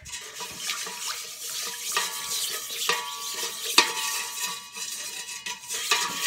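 Dish brush scrubbing the wet inside of a stainless steel water distiller's boiling chamber: continuous scratchy bristle scraping as it loosens the brown residue left after a batch of distilling, with a few sharp knocks of the brush against the steel wall.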